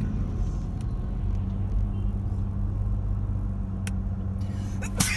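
Car cabin noise while driving at road speed: a steady low rumble of tyres and engine with a steady low hum.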